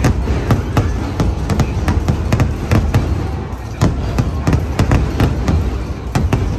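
Fireworks going off, an irregular run of sharp bangs, several a second, over a low rumble.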